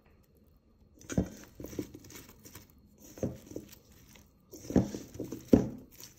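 Spatula tossing sauce-coated broccoli and cauliflower florets in a stainless steel bowl: irregular soft knocks and scrapes of vegetables against the metal, starting about a second in, the loudest near the end.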